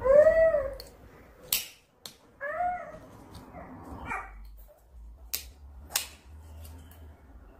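A desk stapler snaps shut with sharp clicks, about a second and a half in and twice more late on, as it is pressed through a tissue and fabric strip. Louder still are two short pitched calls that rise and fall, one right at the start and one about two and a half seconds in.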